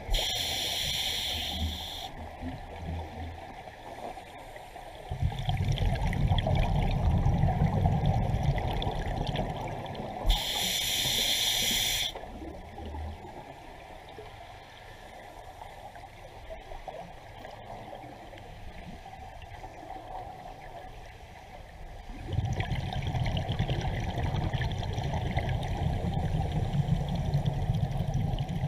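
Scuba diver breathing through a regulator underwater: twice a short hiss as air is drawn in, each followed by a longer stream of exhaled bubbles rumbling and gurgling, the second starting about two-thirds of the way in.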